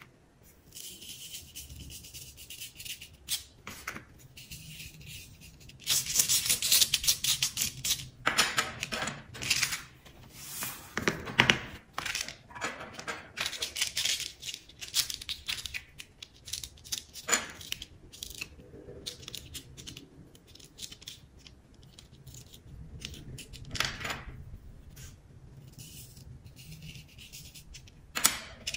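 Coloured craft sand being scooped from plastic tubs with a plastic spoon, sprinkled onto a sticky sand-art card and rubbed in by hand, with a wooden stick scratching at the card. The sounds are irregular dry scrapes and rustles, loudest about six to eight seconds in.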